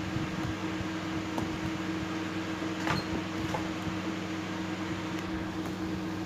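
Steady mechanical hum with a fixed low pitch. Over it, a faint plastic click about three seconds in and a few fainter ticks as a phone's plastic back cover is prised off by hand.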